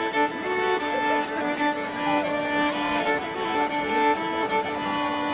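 Background music: a fiddle tune played over long held drone notes.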